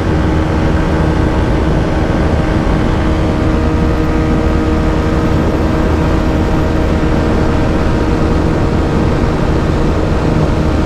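TVS Apache RTR 160 4V's single-cylinder engine running flat out in fifth gear at about 126 km/h, holding a steady pitch under heavy wind rush.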